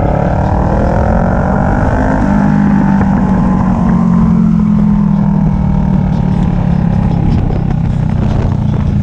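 Motorcycle engine running under way. Its pitch climbs for the first couple of seconds, then holds steady and slowly eases off.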